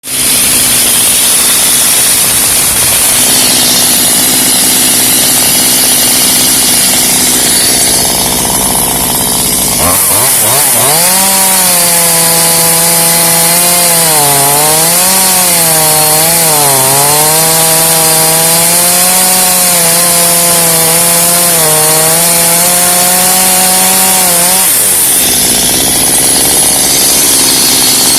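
Two-stroke chainsaw revved up and cutting through wood for about fifteen seconds, its engine pitch dipping and recovering as it bogs under load. Before and after the cut a steady engine hum runs on.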